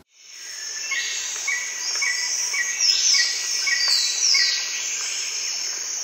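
Outdoor birdsong and insects: a bird repeats a short chirp about twice a second, with several descending whistled notes, over a steady high insect chirring. The sound fades in at the start.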